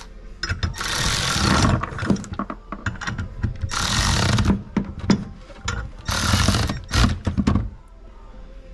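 Tools working on a Modine Hotdawg unit heater's gas burner manifold, changing the natural-gas orifices for LP ones. There are three bursts of rapid mechanical clicking and rattling, each under a second, with scattered knocks between, and it goes quieter near the end.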